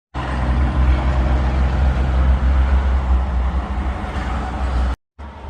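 Steady rumble of a moving vehicle, cutting off abruptly near the end.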